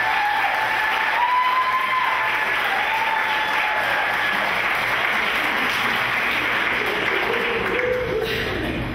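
Audience applauding, with a few voices calling out over the clapping in the first few seconds; the applause dies down near the end.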